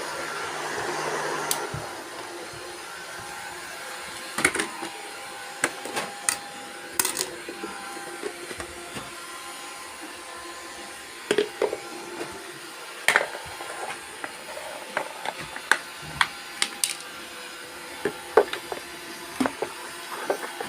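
Robot vacuum cleaners running, a steady motor whir with many irregular sharp clicks and knocks. The whir is louder for the first couple of seconds and then drops.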